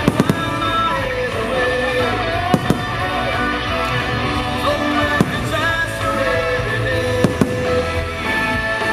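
Fireworks show: a loud music soundtrack plays with firework shells bursting over it in sharp bangs. There is a quick cluster of three at the start, a pair about two and a half seconds in, one about five seconds in, and another pair about seven seconds in.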